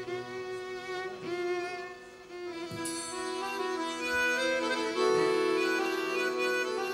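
Live folk-band instrumental intro: cello and fiddle bowing slow, held notes, the sound filling out and growing louder about five seconds in.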